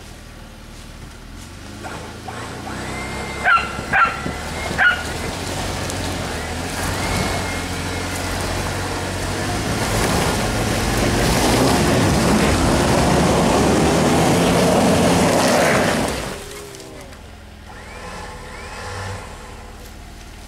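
Jeep Wrangler JK pulling itself up a steep, leaf-strewn gully on its winch, the winch and engine working under load. The noise builds steadily for over ten seconds and stops abruptly about three-quarters of the way through.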